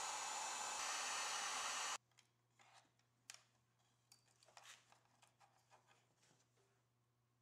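Electric heat gun blowing steadily, shrinking solderless heat-shrink butt connectors on the wiring, then switched off abruptly about two seconds in. Faint clicks and rustles of hands handling small wires follow.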